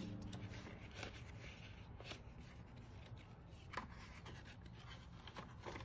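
Page of a large picture book being turned by hand: faint paper rustles and soft taps, after the low tail of a deep boom fades out at the start.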